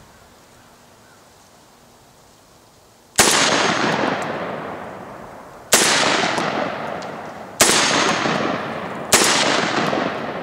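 Derya Lion X4 shotgun fired four times, the first shot about three seconds in and the later ones coming quicker, each blast followed by a long fading echo.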